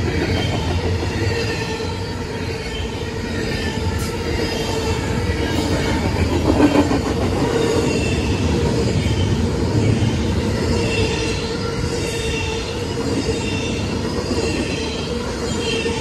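Double-stack intermodal freight train rolling past close by: a steady rumble of wheels on rail, with a steady squealing tone from the wheels and fainter high squeals over it. It gets briefly louder about seven seconds in.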